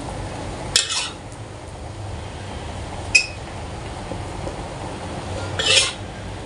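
Spatula scraping and clinking against a wok while scooping fried rice vermicelli onto a plate: a scrape about a second in, a short clink around three seconds, and a longer scrape near the end, over a steady low hum.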